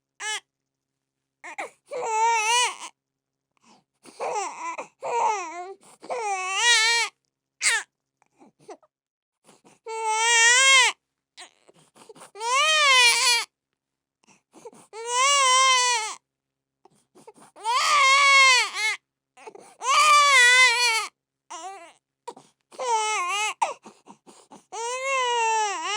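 Baby crying: a string of wails, each rising and then falling in pitch, with silent gaps between them. The first half holds shorter, broken cries; from about ten seconds in come longer wails, one roughly every two to three seconds.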